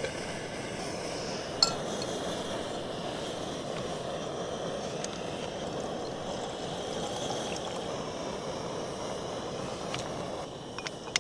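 Primus Express Spider II gas stove burning at full flame with a steady, very loud rushing noise from the burner. A single sharp metallic clink comes about one and a half seconds in, and the burner noise eases slightly near the end.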